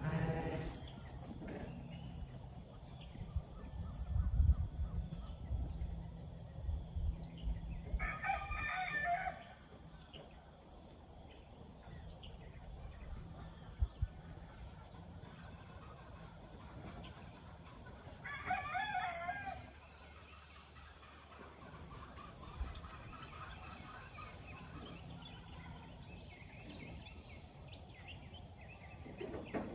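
A rooster crowing twice, about ten seconds apart, each crow a little over a second long. A low rumble runs through the first several seconds.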